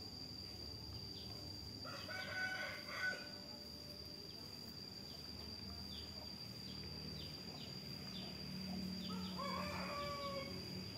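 Two long, wavering animal calls, one about two seconds in and another near the end, over a steady high-pitched insect drone.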